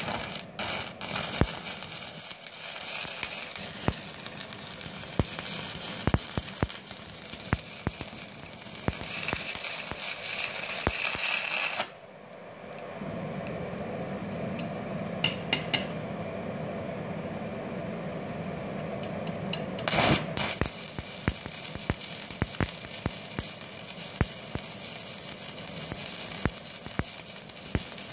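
Stick (MMA) welding arc from a 4 mm LB-52U low-hydrogen electrode on a MultiPro VRD MMA 400 inverter welder, crackling and sizzling with dense sharp pops. About twelve seconds in the arc goes out, leaving quieter steady background noise. About eight seconds later the arc is struck again with a sharp burst and crackles on.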